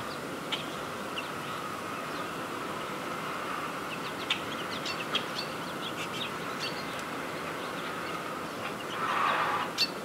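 Short, sharp bird chirps scattered over a steady outdoor hiss, most of them from about four to seven seconds in. Near the end a louder rushing swell rises and ends in a sharp click.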